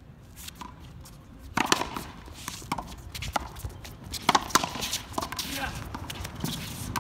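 Outdoor racquetball rally: sharp knocks of the ball off racquet strings and the concrete wall, starting about a second and a half in and coming irregularly, with sneakers scuffing on the court.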